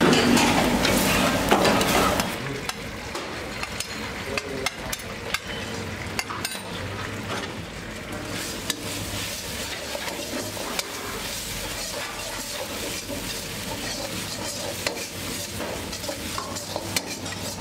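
Kitchen cooking sounds: a metal ladle stirring and scraping a mixture in a steel pan while food sizzles, loudest for the first two seconds. Frequent short clinks of steel utensils and pans run through the rest.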